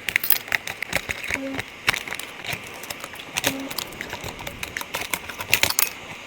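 Irregular sharp clicks and taps from small tools and parts being handled in a phone repair, bunched most densely near the end.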